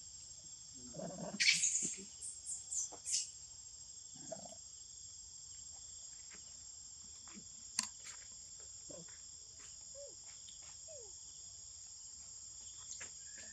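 Steady high-pitched drone of insects. About a second and a half in comes a short run of shrill macaque squeals, the loudest sound here, followed later by scattered small clicks.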